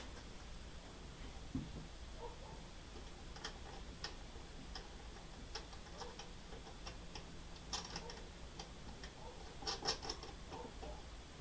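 Faint, irregular clicks and taps of battery cable leads being fitted and tightened onto the terminals at the back of a power inverter, with a brief flurry of louder clicks near the end.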